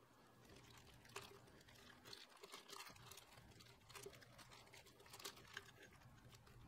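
Faint, irregular crinkling of a clear plastic bag handled by gloved hands, with scattered small crackles.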